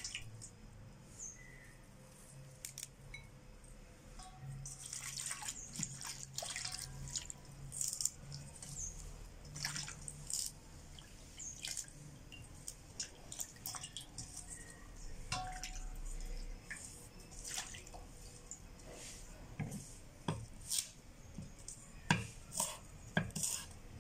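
Small splashes and drips of water as pandan leaves are rinsed by hand in a steel bowl of water. Near the end, a few sharper knocks of a knife cutting on a wooden board.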